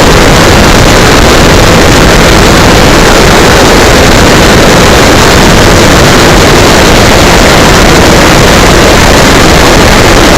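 Steady rushing airflow and electric-motor propeller noise from an RC Cessna 182 in flight, heard through a small camera's microphone. It is overloaded and distorted throughout, with no clear engine tone.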